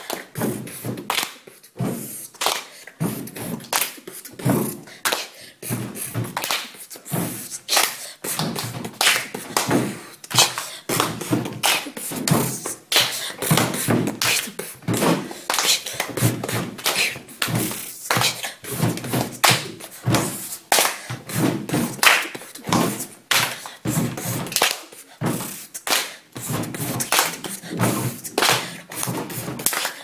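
Children beatboxing: mouth-made kick, snare and click sounds in a quick, continuous rhythm.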